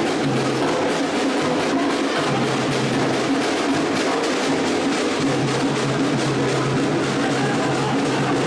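Music with drums.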